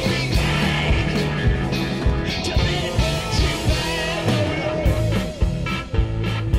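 Psychedelic rock band recording playing: electric guitar over bass and steady drums.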